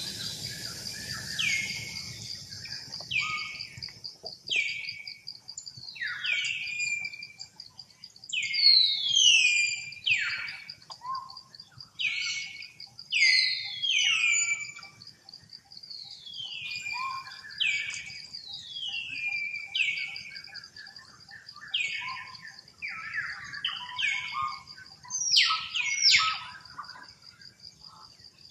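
Young long-tailed macaques screaming in distress while being roughed up by a bigger youngster: a long string of shrill, falling cries, one every second or two, over a steady high buzz.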